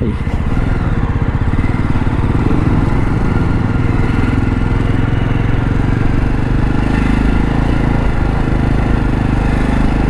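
Jawa motorcycle's single-cylinder engine running steadily while riding at low speed, with road and wind noise.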